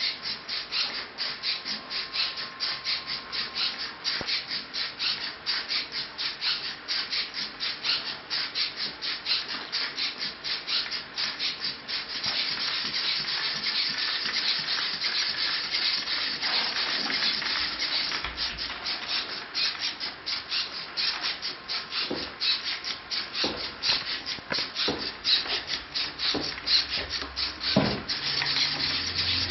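Metal-gear MG995 hobby servos of a six-legged walking robot buzzing in a rapid, even train of pulses as the legs step. A few knocks come in the last several seconds.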